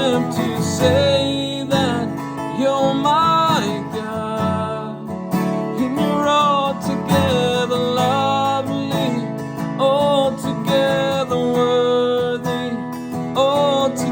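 Worship music: acoustic guitar strumming chords under a held, gliding melody line.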